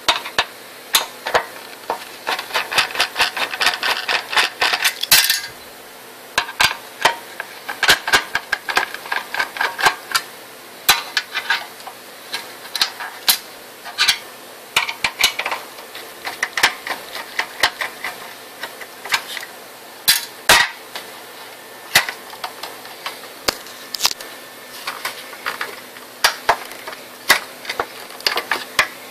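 Screws being worked out of the LCD monitor's metal chassis and its circuit boards being handled: irregular sharp clicks and metallic taps, some in quick runs.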